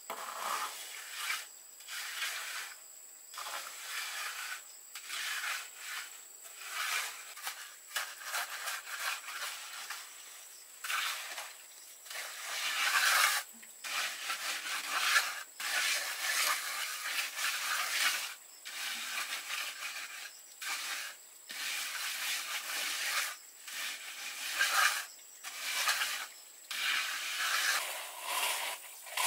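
Hand trowel scraping and smoothing wet concrete, in repeated rasping strokes about one a second.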